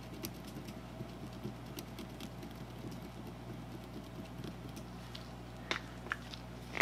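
A steady low hum with faint scattered ticks, then a few small sharp clicks near the end: a marker pen and gloved hands working on a steel ball nut.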